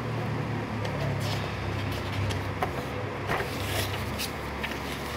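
Paper pages of a bound book being handled and turned, a few short rustles scattered through, over a steady low hum.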